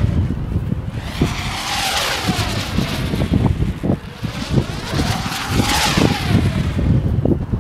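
Two-line sport kite whooshing through the air in about three fast passes, each a swelling rush with a buzzing tone that rises and falls as it sweeps by. Wind buffets the microphone underneath.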